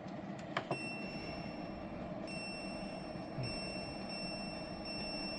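Portable air conditioner running with a steady fan hum; a few sharp clicks of its control buttons being pressed in the first second, then a steady high-pitched electronic whine sets in, dropping out briefly twice.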